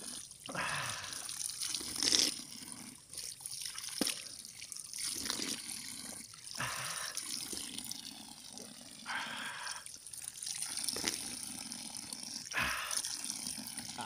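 Water scooped with a black container and poured out, splashing and trickling in several short separate bursts.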